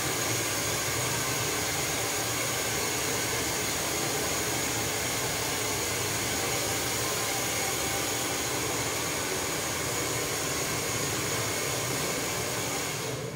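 Hand-held hair dryer blowing steadily, a rush of air with a thin high whine over it, cutting off at the very end.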